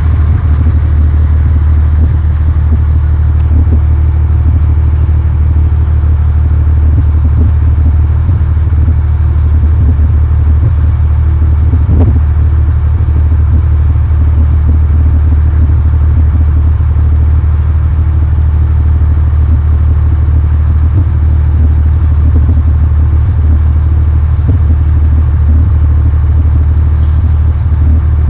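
Boat engine running steadily: a loud, constant low drone with a faint high whine above it and a single brief knock about twelve seconds in.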